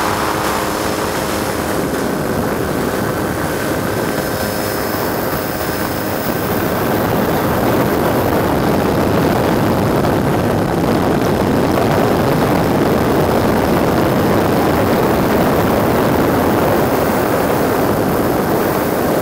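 Helicopter rotor and engine noise, a loud steady wash that grows a little louder after about seven seconds. A few faint steady engine tones underneath fade out in the first six seconds.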